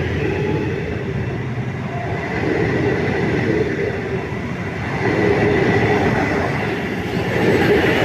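A train rolling past on the railway line, a steady rumble of wheels on rails that swells slightly about five seconds in.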